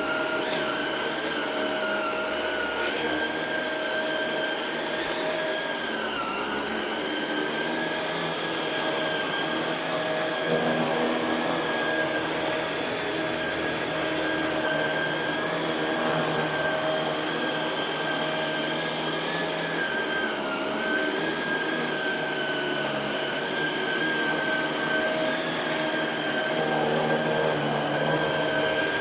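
Shark Rotator Pro Lift-Away NV500 upright vacuum running on carpet: a steady high motor whine over a lower hum, its pitch dipping briefly a few times as the load on the motor changes.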